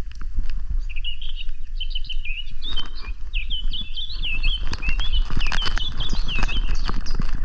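A songbird sings a long run of quick, high, rising-and-falling notes from about a second in until near the end. Footsteps on a forest track go on throughout, with a steady low rumble underneath.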